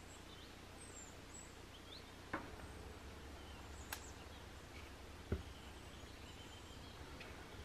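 Faint, high bird chirps scattered throughout over a low steady hum, with three light knocks about a second and a half apart in the middle.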